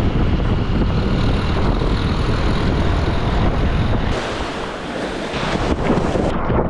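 Wind rushing over the microphone of a moving motorbike, with its engine running under it. About four seconds in this gives way to a brighter hiss of churning whitewater.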